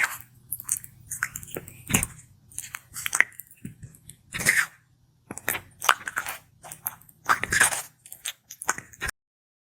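Sulcata tortoise biting and chewing food in irregular crunchy mouthfuls, with a faint low hum beneath. The sound cuts off abruptly near the end.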